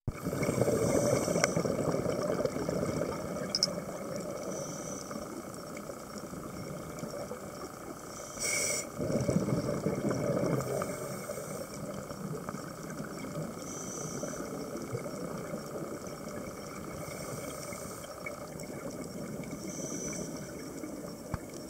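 Scuba regulator breathing heard underwater. Two long bubbly exhalations come near the start and about nine seconds in, with short hissing breaths in between, over a steady underwater hiss.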